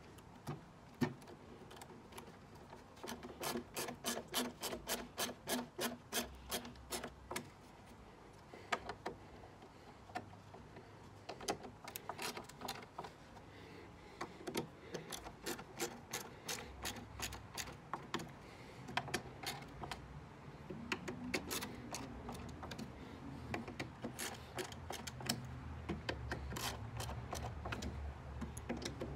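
Hand screwdriver driving screws into the plywood slats of a wooden record crate, in runs of quick, evenly spaced clicks with some rubbing of metal on wood.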